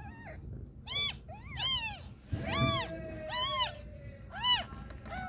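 Newborn kittens mewing: about six short, high, rising-then-falling cries, roughly one a second, with a soft low bump about two and a half seconds in.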